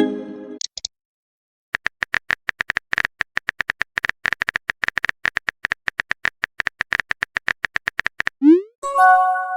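A synthetic chat-app typing sound: a long run of rapid, even keystroke clicks, with a short electronic chime fading at the start and a quick rising swoosh followed by a held chime near the end, like message sent and received alerts.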